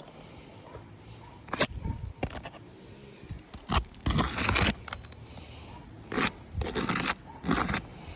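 Irregular scraping and clattering on an asphalt shingle roof, in several short bursts: shingles and tools being handled during a shingle repair.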